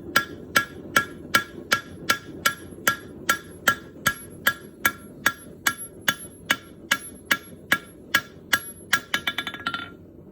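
Hand hammer striking hot bronze on an anvil at a steady pace, about two and a half blows a second, each with a bright metallic ring. Near the end the blows give way to a quick rattle of light taps that dies away.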